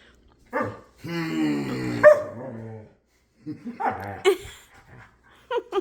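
Dog barking in play: a short bark, then a long drawn-out bark lasting about two seconds, followed by a few quicker barks.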